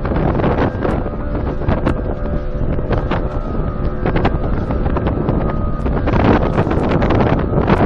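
Wind blowing hard across the microphone on an inflatable boat moving over the sea, with frequent sharp slaps of water against the rubber hull and a faint steady hum underneath.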